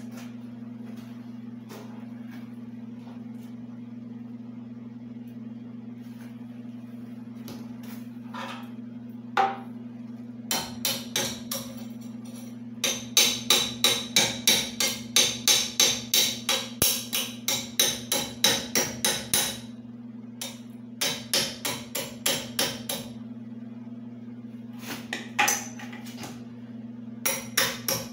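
Arc welding on a piston air compressor's belt pulley: the arc crackles in short, sharp, rapid pulses, about three a second. The pulses come in bursts starting about ten seconds in, over a steady electrical hum.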